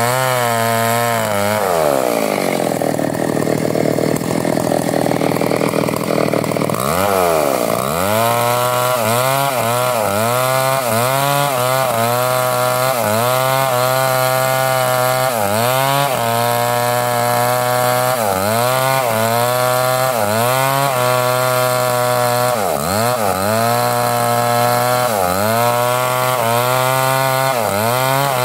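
Two-stroke chainsaw ripping lengthwise through a mango log, its engine note sagging under load and recovering over and over, about every one to two seconds. Near the start the engine drops to a lower note for a few seconds before climbing back to full speed.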